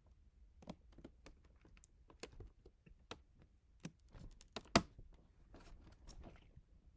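A string of faint, irregular clicks and light taps, with one sharper click a little before five seconds in.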